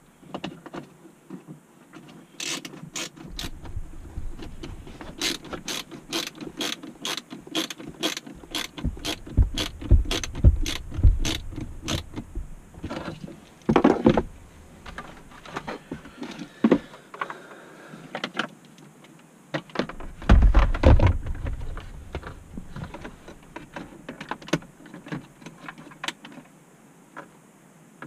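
A screwdriver and plastic dashboard trim being worked by hand: a run of sharp, evenly spaced clicks about two a second, then scattered clicks, with two spells of heavier knocks, one near the middle and one about three-quarters through.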